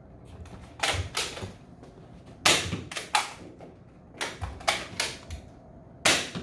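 Nerf Rival Knockout blaster being fired and worked over and over: four clusters of sharp pops and plastic clacks, each about two seconds apart.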